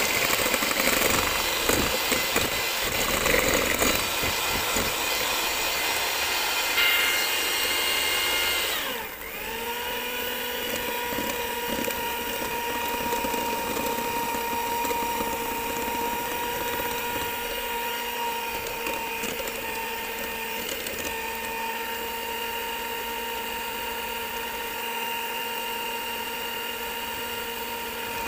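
Electric hand mixer running, its beaters whisking cake batter in a glass bowl. About nine seconds in, the motor's whine falls to a lower pitch and then runs steadily at a slower speed while cocoa powder is beaten in.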